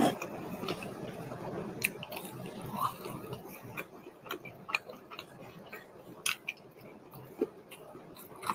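Close-miked chewing and wet mouth clicks of a person eating chicken tenders and macaroni, with irregular smacks throughout.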